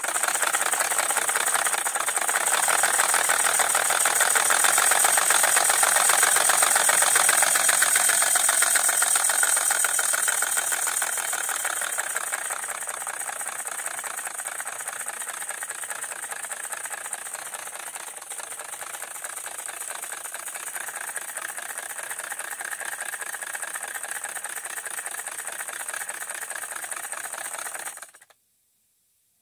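Roundhouse Lady Anne model steam locomotive running on compressed air with its wheels spinning free, its valve timing just reset: a fast, even hiss of exhaust beats with the clatter of the rods and valve gear. It runs loudest for the first ten seconds or so, then settles quieter, and cuts off suddenly near the end.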